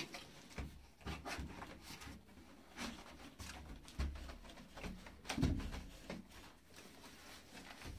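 Cardboard box being worked off a tight-fitting studio monitor: irregular rubbing and scraping of cardboard with scattered knocks, the loudest about five and a half seconds in.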